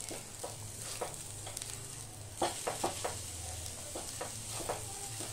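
Silicone spatula stirring and scraping grated coconut and jaggery around a nonstick pan as the modak filling is roasted, with a faint steady sizzle of it frying. Short scrapes and taps come in clusters about halfway through and again near the end, over a steady low hum.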